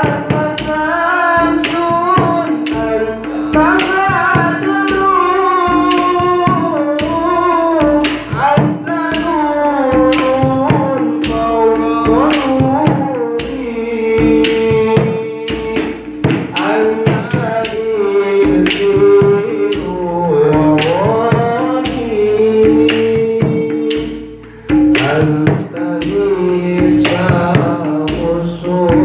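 A male voice sings an Islamic sholawat into a microphone, in long melismatic phrases over a regular beat of hand percussion.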